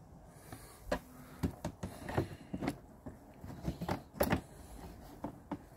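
Hard plastic scooter body panel clicking and creaking as a hand presses and flexes it against the frame: a string of irregular sharp clicks, the loudest a little over four seconds in.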